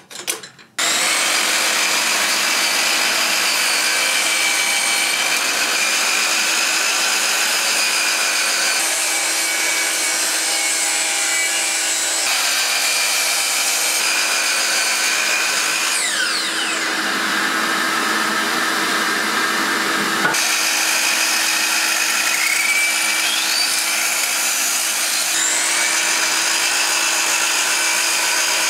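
Power tools running almost without a break, a miter saw among them, as boards are cut. The steady loud whirring has a constant hum underneath and changes abruptly every few seconds. A falling whine comes a little past halfway, and short rising whines come near the end.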